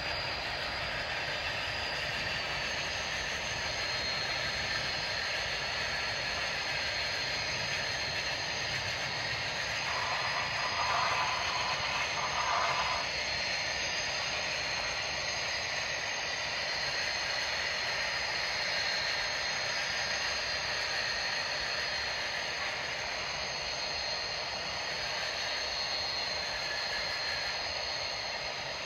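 Freight train cars rolling past under a steady hiss of rain, with a brief louder passage about ten seconds in.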